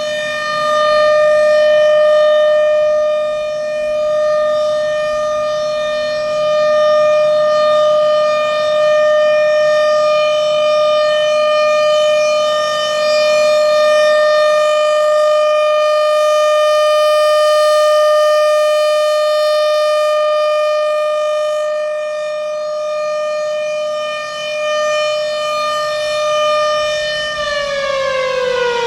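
Federal Signal Thunderbolt 1000 outdoor warning siren with a 6M blower sounding a steady alert tone, its loudness swelling and fading slowly as it turns. About 27 seconds in it is switched off and the pitch starts falling as the siren winds down.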